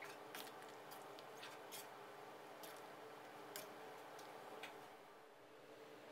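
Faint, irregular clicks of a metal ladle touching the side of the pot while a thick curry is stirred, over near silence.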